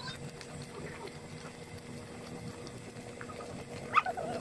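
Thick tomato sauce bubbling and popping in a large aluminium wok as it simmers. A brief sharp sound stands out about four seconds in.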